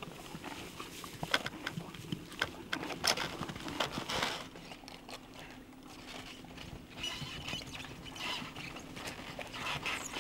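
Fjord horse stepping through snow: irregular crunching hoofsteps, louder and closer together in the first few seconds.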